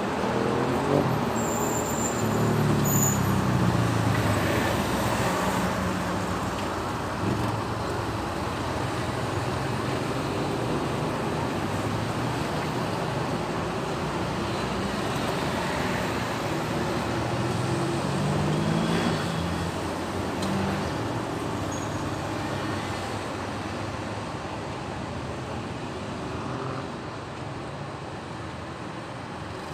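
City street traffic: a steady wash of engine and tyre noise from cars and buses, with engines rising in pitch as vehicles pull away near the start and again about two-thirds of the way through.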